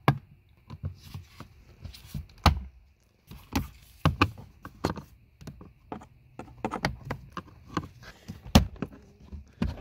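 Flat screwdriver prying plastic push-pin clips out of a car's plastic footwell trim panel: a run of irregular sharp clicks and knocks. The loudest come at the very start, a little after two seconds in, and near the end.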